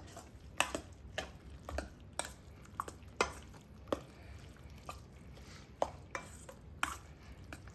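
A utensil stirring and tossing drained pasta through a creamy egg and pesto sauce, with about a dozen irregular clinks and knocks against the cookware.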